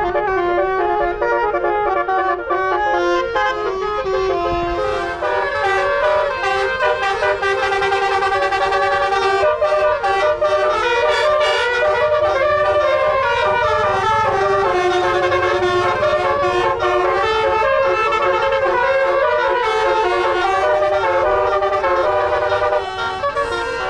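Tour bus telolet horn, a set of air-horn trumpets, playing a loud melody without a break, several tones sounding together and changing note quickly.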